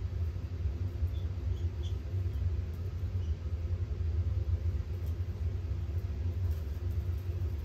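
Steady low rumble of background noise, unbroken and without speech.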